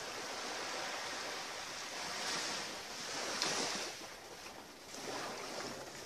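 Small waves washing onto the shore in several swells, the loudest about three and a half seconds in.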